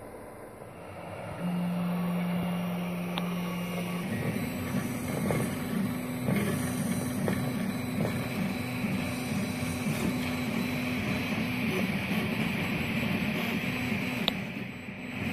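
3D printer printing: its stepper motors whine in one steady tone for a couple of seconds, then in quick short moves that keep changing pitch as the print head traces the layer. A small cooling fan hisses steadily underneath.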